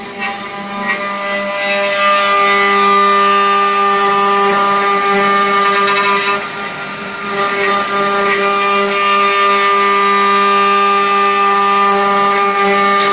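Spindles of a 4-axis CNC wood carving machine cutting rotating wooden blanks into shaped legs: a steady, high motor whine with the hiss of the cutters in the wood. The sound dips briefly about six seconds in.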